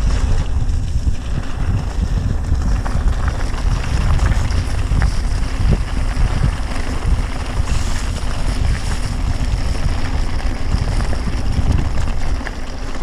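Wind buffeting the microphone of a mountain biker's camera during a ride, a loud steady rumble, with scattered clicks and rattles from the bike and tyres on the trail.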